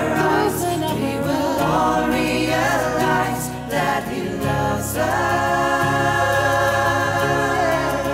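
A Christian worship song: singing over instrumental accompaniment, ending on a long held note over the last three seconds.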